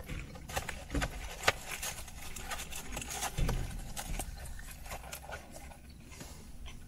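Cardboard takeout box being handled and opened, with scattered crinkly clicks and rustles. The sharpest click comes about one and a half seconds in.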